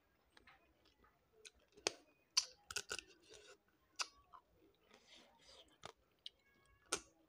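Close-up eating sounds: irregular sharp wet smacks and clicks of lips and fingers, with chewing, as pieces of eel fish curry are pulled apart by hand and eaten.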